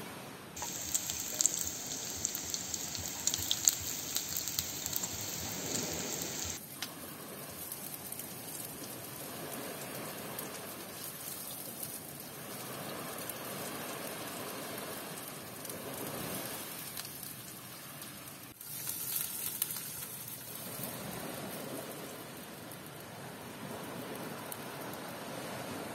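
Food sizzling in a frying pan on a portable gas stove as it is stir-fried. The first six seconds or so are the loudest, with a bright hiss and many sharp pops. After that a softer, steady sizzle swells and fades.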